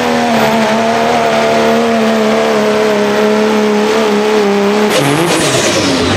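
Second-generation Dodge Ram's Cummins diesel engine running flat out while pulling the weight sled, a loud steady note that sinks slightly in pitch under the load. About five seconds in the throttle is cut and the engine falls away.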